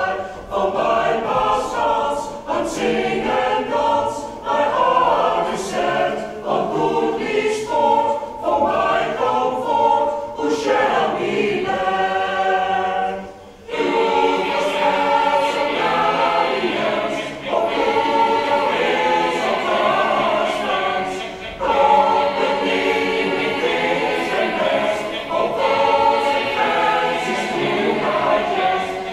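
Mixed choir of men's and women's voices singing together, with a short break about halfway through before the singing resumes.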